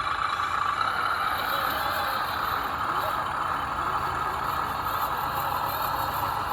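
Radio-controlled Axial SCX10 rock crawler running, its electric motor and geared drivetrain whining steadily.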